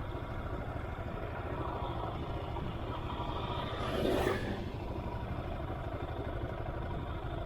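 Royal Enfield Himalayan's 411 cc single-cylinder engine running steadily while riding, with wind noise on the action camera's built-in mic. There is a brief louder swell about four seconds in.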